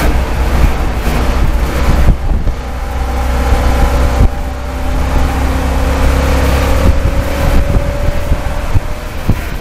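Stock car race engine running hard, heard from inside the cockpit as a loud, heavy rumble. The engine note drops about two seconds in and again about four seconds in, then slowly climbs.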